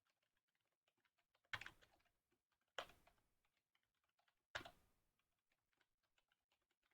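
Faint typing on a computer keyboard, with three brief louder moments of keystrokes.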